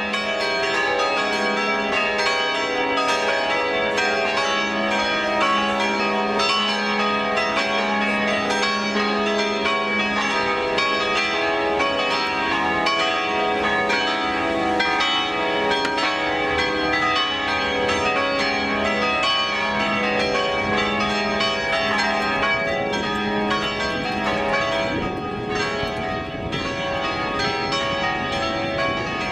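Bells ringing a quick, continuous run of overlapping notes, each strike ringing on under the next.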